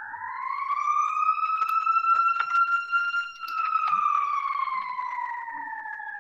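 A loud siren-like wail with overtones that rises in pitch for about three seconds and then slowly falls, with a few faint clicks over it.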